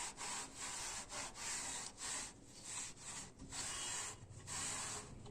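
Cloth wiping the bass drum shell clean in repeated back-and-forth rubbing strokes, about two a second.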